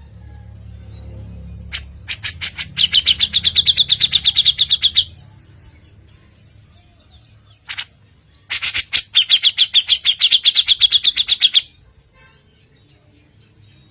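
Songbird singing two phrases, one about two seconds in and one near eight seconds. Each is a fast run of sharp chips followed by a high, rattling trill held about two seconds, over a faint low hum.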